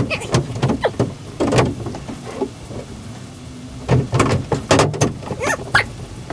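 A fiberglass shower wall panel scraping and knocking as it is handled and pushed into place against the framing and base. It comes in a series of short scrapes and thumps, busiest about four to five seconds in.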